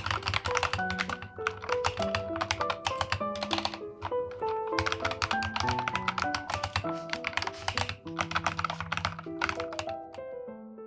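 Rapid typing on a custom KF068 mechanical keyboard with Akko switches, dense key clacks over soft piano background music. The typing stops about ten seconds in and the music fades out.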